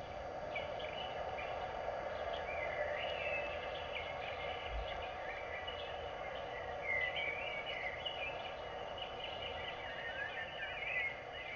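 Birds chirping and twittering in short, rising and falling calls over a steady background of outdoor ambient noise.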